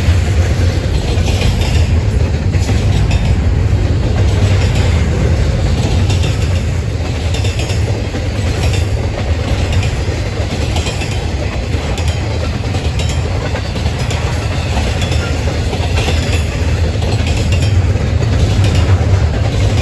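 Train rolling past with a steady low rumble, its wheels clicking over rail joints about once a second.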